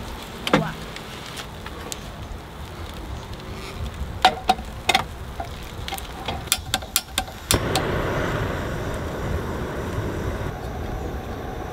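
A snowline gas camping stove being lit: a quick run of sharp igniter clicks, then about seven and a half seconds in the burner catches and runs with a steady hiss under a mess-tin pot. Before that, aluminium foil crinkles as it is peeled off, and there are a few sharp metal clicks.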